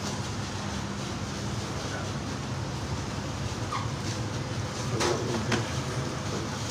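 Steady low machine hum with a few faint knocks about five seconds in.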